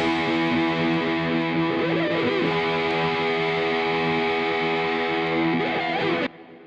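Background music: a held, distorted electric guitar chord ringing steadily, which cuts off sharply near the end, leaving a faint fading tail.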